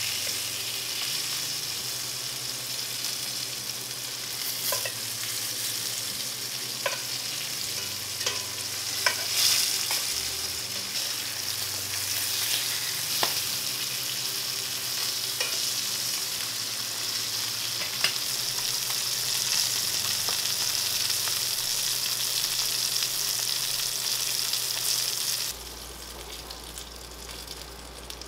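Pieces of ribbon fish sizzling steadily in oil in a cast-iron skillet, with occasional sharp clicks and pops as a metal spatula scrapes and turns them. The sizzle cuts off suddenly near the end, leaving a quieter low hum.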